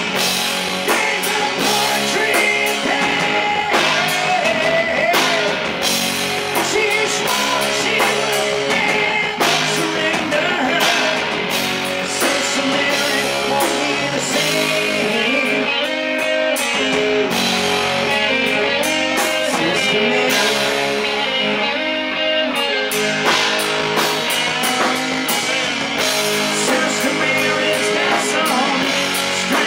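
Live rock band: electric guitars, a drum kit and a man singing. It is picked up on stage from the amps and monitors rather than the mixed PA. The bright top end thins out for several seconds past the middle, then comes back.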